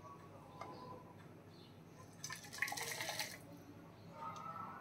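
A brief rush of liquid lasting about a second, over faint background music.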